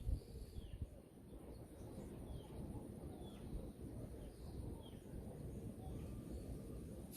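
A bird giving short, faint, falling chirps about once a second, over a steady low outdoor rumble.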